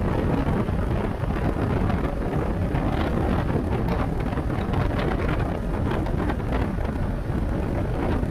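Steady wind rushing and buffeting on the microphone over a low, constant rumble, as heard riding a motorcycle at speed.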